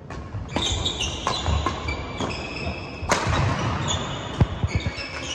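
Badminton doubles rally: rackets striking the shuttlecock with sharp cracks every half second to a second, mixed with short high squeaks of court shoes and the thud of players' footsteps on the court floor, one heavier thud about four seconds in.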